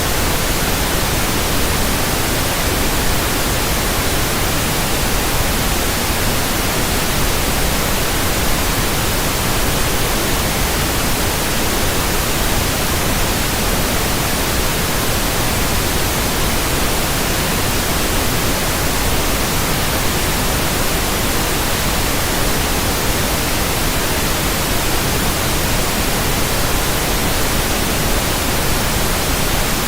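Loud, steady static: an even hiss spread across all pitches, unchanging throughout.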